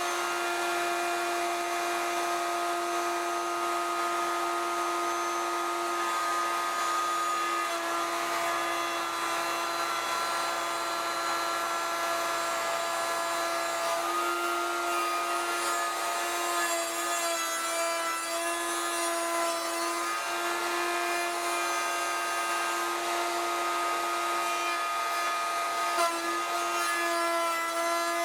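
Router running at full speed, a steady high whine, with its 1/2-inch two-flute straight bit cutting a mortise in a 2x4 to the full 3/4-inch depth in one pass. The tone wavers slightly a few times as the bit takes load.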